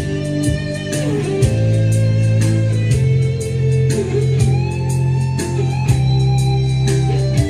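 Instrumental break in a song: a guitar melody with bent notes over bass and a steady drum beat.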